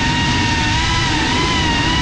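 FPV quadcopter's brushless motors and propellers whining in flight, a steady high whine that wavers a little in pitch, over rushing air noise.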